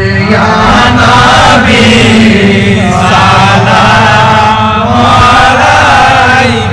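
Men chanting a devotional Milad qiyam salutation together in a slow, melodic tune, many voices joining the lead singer, loud and continuous over the loudspeakers.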